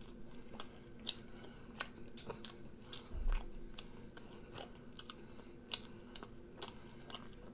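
Close-miked chewing of a bagel burger: faint, irregular wet mouth clicks and smacks, with fingers being licked in the second half. A dull low thump about three seconds in.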